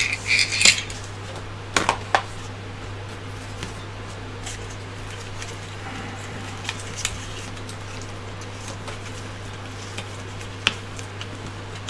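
Hands handling 3D-printed plastic parts and a circuit board on a desk: a light clatter of plastic near the start, a couple of sharp clicks about two seconds in, then faint handling clicks, over a steady low hum.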